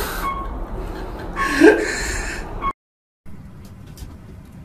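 Crinkling and rustling of a plastic snack bag as marmosets pull and bite at it. About a second and a half in there is a short voice-like cry that rises and then falls in pitch. After a sudden cut the sound turns faint, with scattered small clicks.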